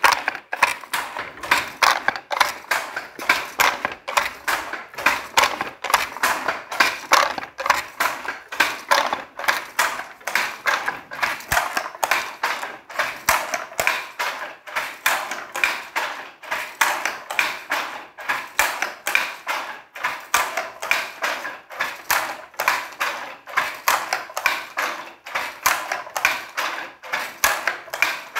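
Wooden fly-shuttle handloom being worked: a steady, rapid clatter of wooden knocks as the shuttle is thrown across and the beater packs in the weft, about three knocks a second.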